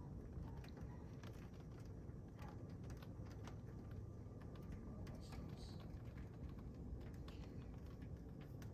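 Heavy rain falling steadily, with scattered drops tapping sharply and irregularly on a hard surface.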